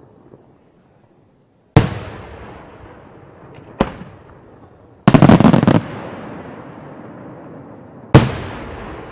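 Aerial firework shells bursting. A loud bang comes about two seconds in and a smaller one near four seconds, then a rapid run of cracks lasting under a second just after five seconds, and another loud bang about eight seconds in. Each bang trails off in an echo.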